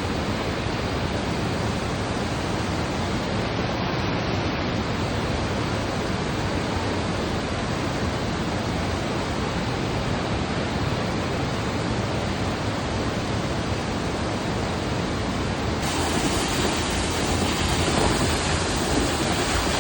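Waterfall: a steady rush of falling water. It turns brighter about sixteen seconds in.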